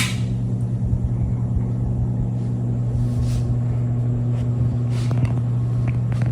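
Harbor Breeze Armitage 42-inch ceiling fan running on high speed: a steady, loud motor hum over a rumble. It is a cheap fan that hums loudly, and the owner already hears bearing noise in it after a few months.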